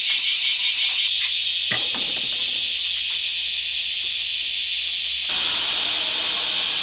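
Water spraying onto an aluminium entrance door as it is rinsed, a steady hiss. Rapid rhythmic strokes about five a second stop about a second in, and a little past five seconds the spray sounds fuller.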